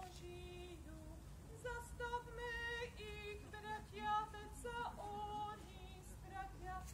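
A woman singing a national anthem over PA loudspeakers: one melody line of long held notes with short slides between them.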